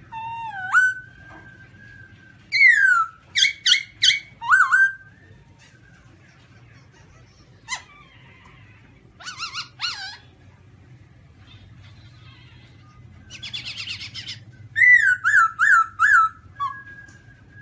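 Black-throated laughingthrush singing: loud, clear whistled phrases of mostly falling notes, broken by short pauses, ending in a run of four quick downslurred whistles and a short held note.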